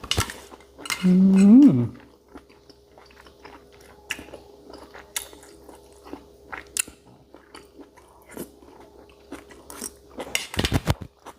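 A person chewing and biting into pounded cow's-foot salad, with scattered sharp, wet mouth clicks and crunches. About a second in there is a short hum of appreciation that rises and falls in pitch, and a quick run of louder crunches comes near the end.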